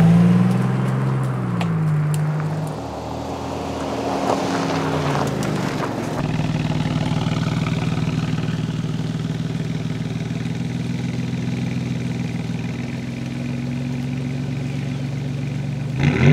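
Alfa Romeo Giulia GTA M's twin-turbo V6 through its Akrapovic titanium exhaust. It drives away with its note falling and fading over the first few seconds, then idles steadily from about six seconds in, and revs sharply near the end.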